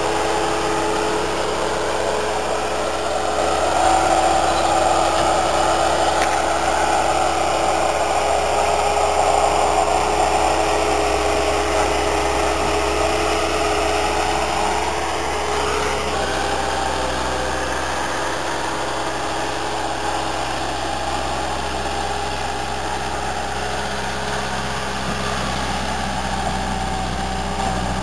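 Bobcat 873 skid-steer loader's diesel engine running steadily, picking up and getting louder about four seconds in, then settling to a lower pitch a little past halfway.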